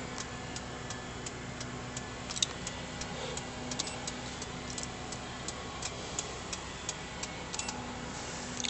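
Turn-signal indicator of a Honda Odyssey ticking steadily, about three ticks a second, with the blinker switched on. A faint steady hum runs underneath.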